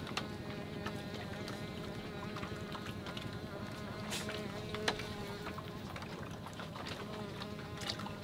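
An insect buzzing close by: a steady, slightly wavering hum, with scattered light clicks and taps throughout.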